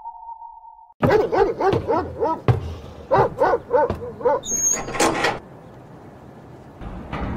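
A dog barking in a quick run of a dozen or so short barks, stopping after about three and a half seconds. A couple of sharp knocks with a brief high squeak follow.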